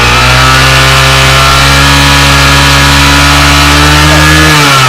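Honda CG 125 Fan's single-cylinder four-stroke engine held at high revs, climbing slightly in pitch, then dropping back as the throttle is released near the end.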